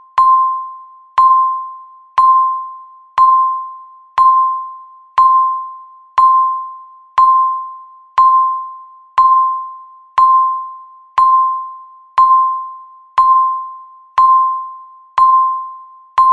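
Countdown timer beeping once every second, about seventeen times: each beep is a single mid-pitched electronic tone that starts sharply and fades away before the next. Each beep marks one second left in the final stretch of the countdown.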